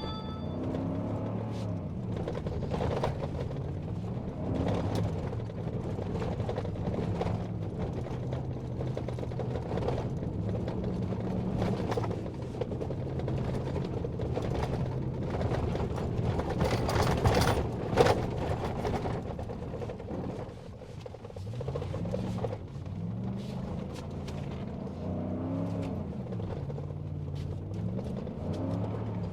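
Vehicle engine running while driving, its pitch rising and falling several times, with frequent knocks and rattles throughout and a louder cluster of knocks past the middle.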